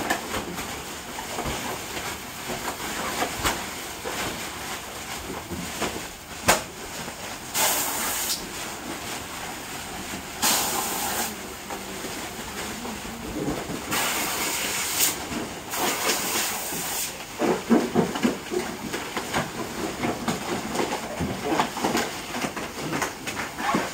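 Clear plastic packing bags rustling and crinkling as they are handled, with four bursts of hissing of about a second each, typical of bags being inflated with gas before tying in vannamei shrimp seed packing.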